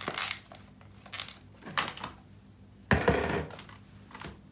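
Slime being shaken inside a small round plastic container with its lid on: a few separate rustling knocks, the loudest and longest about three seconds in.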